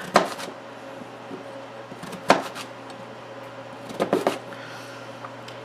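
Chef's knife chopping through raw jicama onto a plastic cutting board: sharp knocks at uneven intervals, a couple at the start, one a little past two seconds in and a quick run of three about four seconds in, over a steady low hum.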